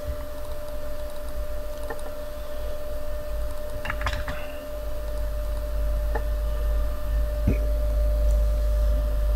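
Steady low hum with a few scattered clicks of computer keys and a mouse as commands are typed into CAD software.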